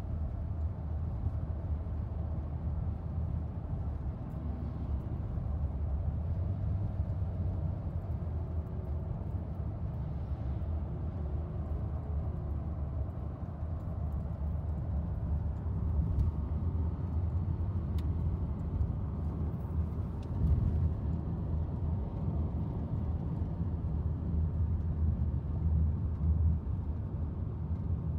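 Steady low rumble of a car being driven, heard from inside the cabin: engine and tyre noise.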